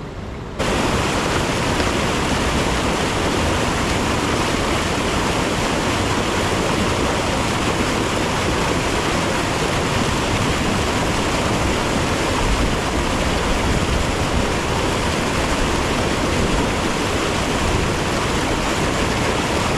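Small creek waterfall rushing steadily and loudly; the sound steps up abruptly about half a second in and then holds level.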